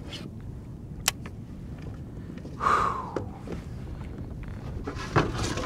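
Wind rumbling on the microphone, with handling noises as a landing net holding a redfish is brought aboard a plastic kayak: a sharp click about a second in, a short rushing burst near three seconds and a few knocks near the end.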